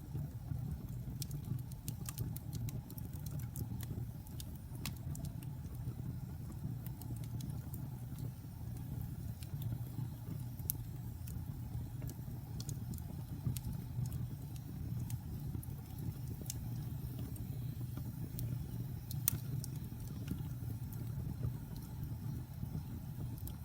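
Fire crackling: a steady low rumble of flames with scattered sharp pops, one of them louder late on.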